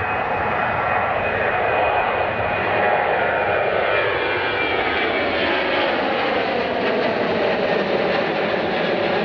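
Jet airliner's engines running as it passes close by, a loud steady rush with high whining tones that slide down in pitch as it goes past.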